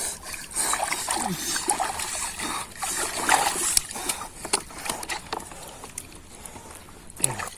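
Water splashing and sloshing in irregular bursts, with sharp little knocks and clicks in between, as when hands and fish move about in shallow muddy water.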